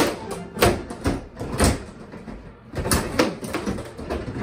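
Bubble hockey table in play: the rods are pushed, pulled and spun, and the plastic players and puck knock against each other and the boards in irregular sharp clacks, with a quieter lull a couple of seconds in.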